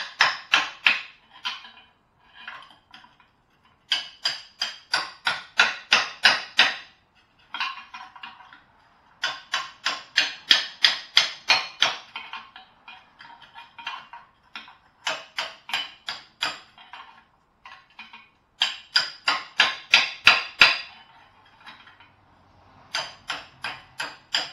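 Metal hammer blows on the catalytic converter of a removed exhaust section, struck to gut it. The blows come in quick runs of about four a second, several seconds each, with short pauses between.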